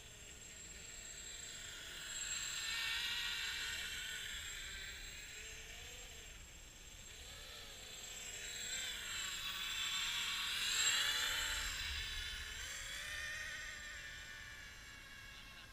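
Small quadcopter flying at a distance, its propellers whining and warbling in pitch as the motors speed up and slow down, growing louder twice as it comes nearer.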